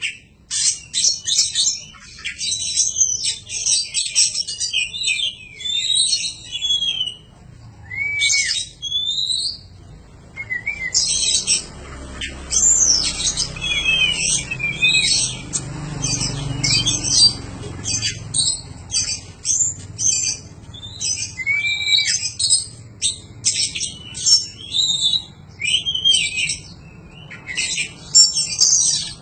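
Oriental magpie-robin (kacer) singing a long, varied song of rapid chirps, trills and short whistled notes, in phrases broken by brief pauses.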